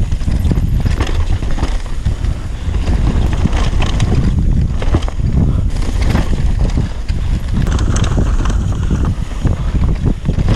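Mountain bike riding fast down a rough dirt trail: heavy wind rumble on the camera microphone with frequent knocks and rattles from tyres hitting stones and roots and the bike's chain and frame clattering.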